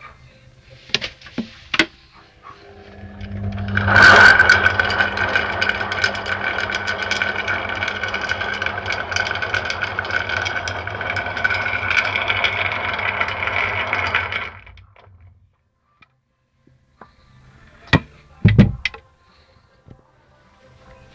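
Washing machine running with a load of mussels in the drum: a steady motor hum under a dense rattling of shells. It swells up about three seconds in and stops about eleven seconds later. A few clicks come before it and two sharp knocks near the end.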